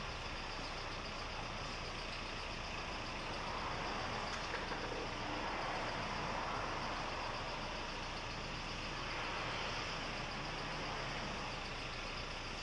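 Steady background noise of a car service workshop, an even hum and hiss, with a few faint clinks about four and a half seconds in.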